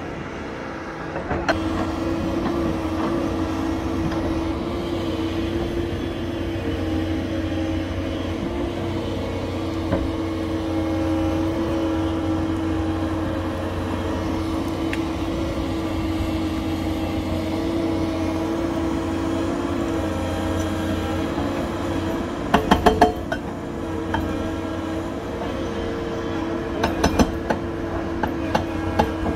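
Doosan crawler excavator working a rock face with a hydraulic breaker: a steady machine drone that strengthens about a second and a half in. A quick cluster of sharp knocks comes about three quarters of the way through, and a few more near the end.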